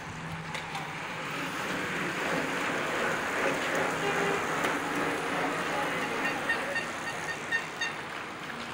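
A group of road bicycles riding past, a rushing whir of tyres and freewheels on tarmac that swells as the bunch comes close and then fades away.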